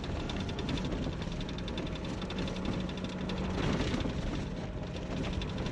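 Jeep driving along a road, heard from inside the cab: a steady engine hum under the road and tyre noise.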